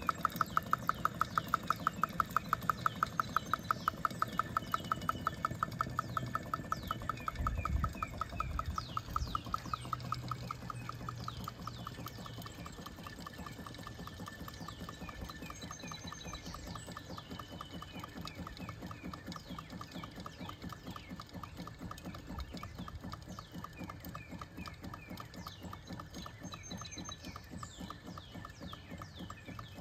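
1920s Model Engineering Co. Kyko hot air (Stirling) engine running, its linkage ticking in a fast, even rhythm of several clicks a second. The ticking drops noticeably quieter about twelve seconds in.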